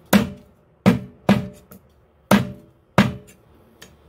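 Chinese cleaver chopping a chicken leg through bone on a thick wooden chopping block: five heavy chops at uneven intervals, each a sharp knock with a deep thud, and a couple of lighter taps in between.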